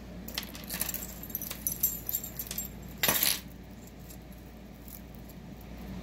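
Tangled costume jewelry clinking and jingling as a thin wire bangle with dangling beads is pulled free of a pile of metal chains and earrings: a run of small metallic clicks, with a louder rattle about three seconds in, then it settles.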